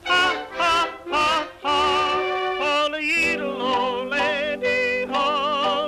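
A voice yodeling in short separate notes, then longer wavering notes over a steady held accompaniment from about halfway through.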